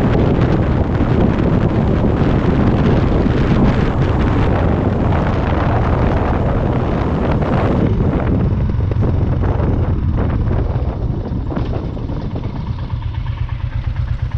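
Motorcycle engine running on the move, with heavy wind noise on the microphone. It slows about eight seconds in, the wind noise dropping away, and settles to an even, pulsing idle near the end.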